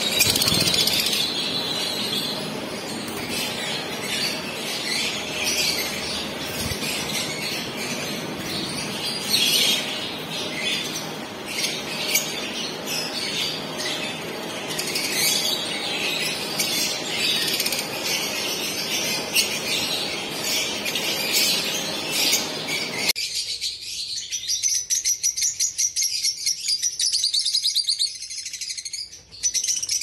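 A flock of Fischer's lovebirds chirping and chattering, many high calls overlapping. About three quarters of the way through the sound cuts to a closer, rapid rhythmic chatter without the background hum.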